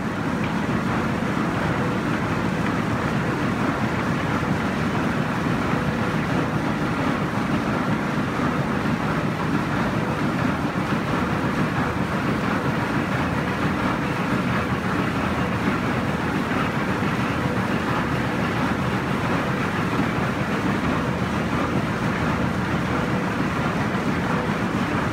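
Belt-driven ore-processing machinery of a gold stamper plant running, with line shafting, pulleys and a Wilfley shaking table, and water running over the table. The sound is a dense, steady rumble with a faint steady hum in it.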